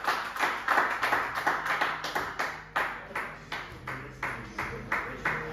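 A few spectators clapping by hand, about four claps a second, thinning out and slowing over the last couple of seconds. This is applause for a finished leg of darts.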